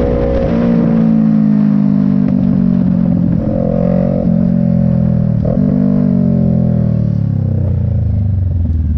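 Kawasaki Z650's parallel-twin engine through a Hindle aftermarket exhaust as the bike slows, the engine note falling steadily with two short jumps in pitch midway, then settling to a low, steady note near the end.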